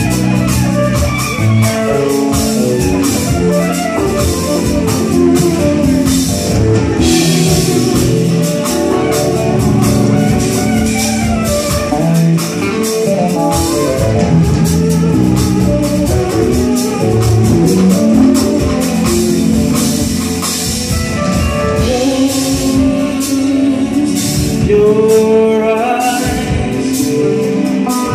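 A live band playing: electric bass, keyboards and a drum kit with busy cymbals, with a voice singing over it.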